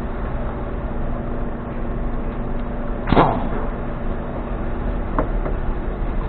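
A steady low mechanical hum, with one sharp metal clank about three seconds in that rings briefly, then a couple of light clicks, typical of tools being handled during repair work on a car.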